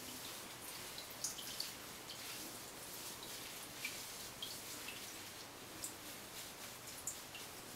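Water dripping off a freshly bathed ferret into a bathtub: scattered small drips over a faint steady hiss.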